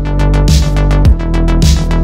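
Loud electronic background music with a steady beat: a deep kick drum about twice a second under quick hi-hats and sustained synth tones.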